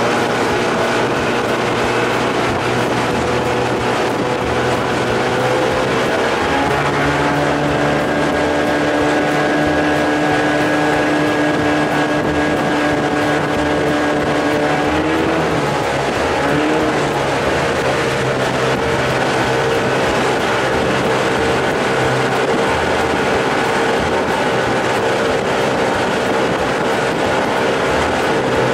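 1993 Evinrude 30 hp two-stroke outboard running under way, with a steady rush of noise beneath it. The engine's pitch shifts about six seconds in, then dips and comes back around the middle as the throttle changes.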